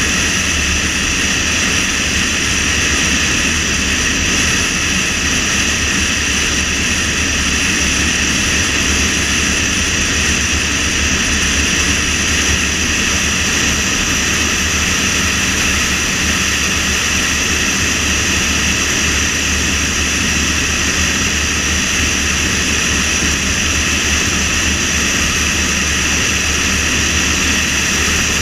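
Steady road and wind noise from a moving car: a low rumble with a constant high whine and hiss over it.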